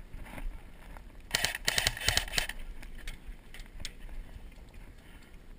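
Airsoft gun firing a full-auto burst of rapid shots, about ten a second, starting about a second and a half in and lasting a little over a second. A single sharp click follows later.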